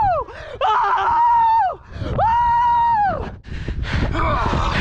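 A person's long, high-pitched yells, three in a row, each held on one note for about a second and then sliding down at the end.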